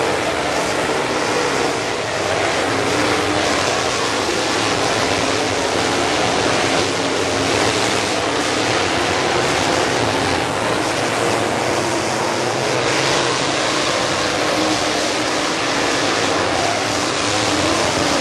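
A field of dirt late model race cars running at speed, their V8 engines loud and steady, with the engine notes wavering as the cars go by.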